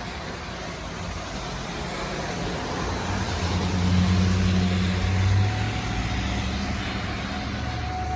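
Road traffic: a steady rush of tyres, with a vehicle passing whose engine hum swells and peaks about four to five seconds in, then fades.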